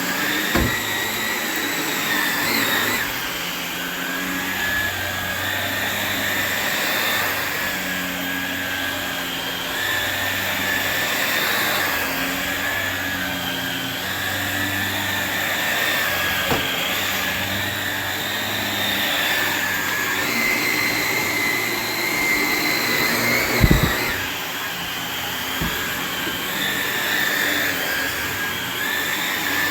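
Shark NV360 Navigator Lift-Away upright vacuum running steadily, its motor whine shifting slightly in pitch every second or two. A few light clicks and one sharp knock come about two-thirds of the way through.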